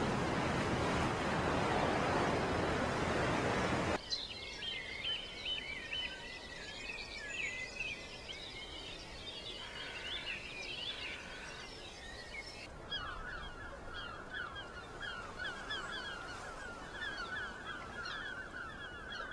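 A steady rushing noise for about four seconds that cuts off suddenly, then wild birds calling and chirping in quick, repeated short notes, the calls changing to a faster, lower series about two-thirds of the way through.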